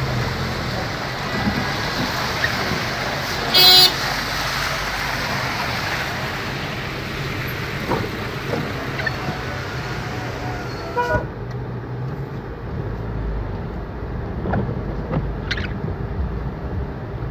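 Wet city traffic in heavy rain, with one short car-horn toot about four seconds in. After about eleven seconds the sound turns duller and quieter, a low traffic rumble heard from inside a car.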